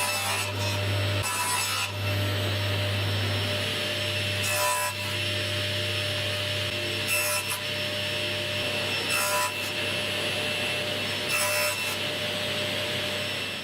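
A woodworking power tool running steadily as it cuts or sands wood, with a brighter rasping surge every two seconds or so.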